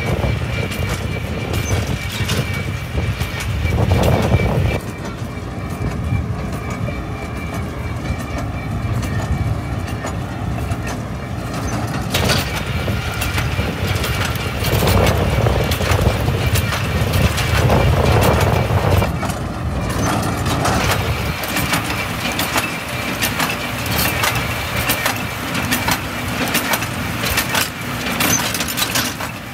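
Tractor engine pulling a New Holland baler that is running and baling vetch. The machinery runs steadily, swelling louder for a few seconds around the middle.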